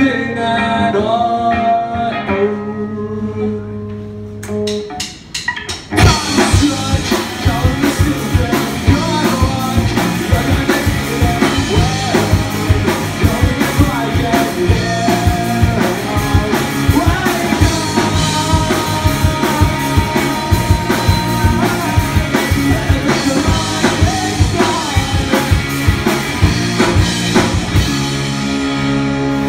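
Live rock band with electric guitars, drum kit and a male singer. Held guitar chords open it, a quick drum fill about five seconds in brings in the full band with driving drums, and near the end the band settles onto a long held chord.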